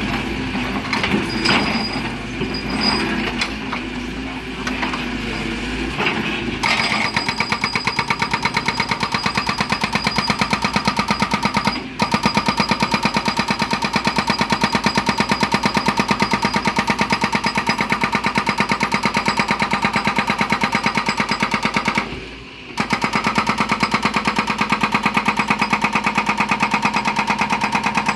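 Excavator-mounted hydraulic breaker hammering stone: rapid, even blows that start about six seconds in, pause briefly twice and pick up again. Before that, the excavator's engine runs with irregular knocking and clatter.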